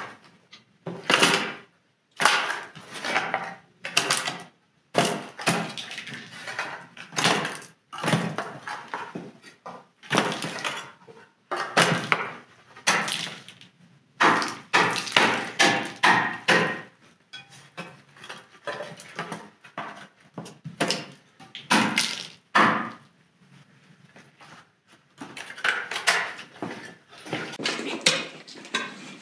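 Dried mud clods and grit being scraped off a rug with a hand scraper and dropped into a metal bucket: irregular bursts of gritty scraping with clattering knocks of clods against the bucket.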